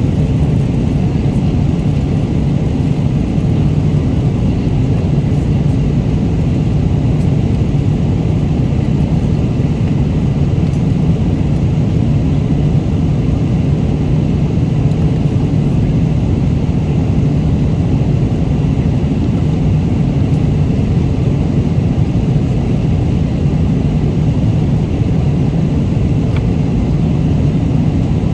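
Steady drone of an airliner's cabin in flight: an even, unbroken low rumble of engine and airflow noise.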